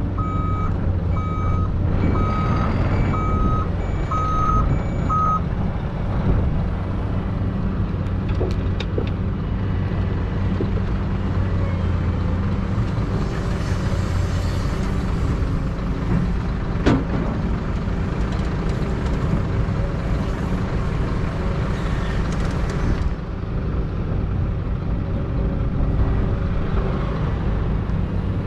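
A Volvo dump truck's reversing alarm beeps steadily over the low drone of diesel engines, stopping about five seconds in. Heavy diesel machinery then runs on steadily. From about 13 to 23 s comes a hiss of soil pouring from a Caterpillar excavator's bucket into a dump truck bed, with one sharp knock near the middle of it.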